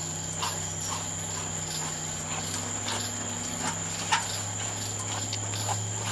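A spoon scraping and tapping against a metal saucepan while stirring thickening instant mashed potatoes, with irregular clicks, the sharpest about four seconds in, over a steady low hum.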